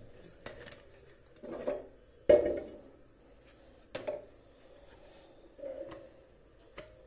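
Kitchen clatter from cookware being handled on a gas stovetop: a series of separate knocks and clunks, the loudest a little over two seconds in.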